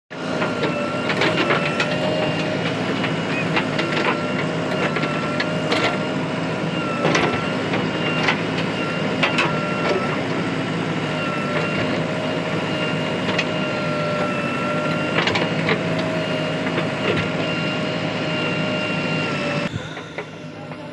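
JCB 3DX backhoe loader running, with a steady high whine over the engine and irregular sharp clanks. The whine and most of the sound drop away near the end.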